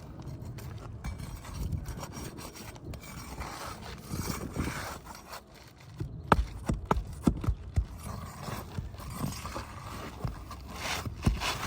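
Asphalt 3-tab shingles being scraped and worked loose with a hand tool, with a cluster of sharp clicks and knocks a little past the middle and another near the end as the roofing nails are pried out.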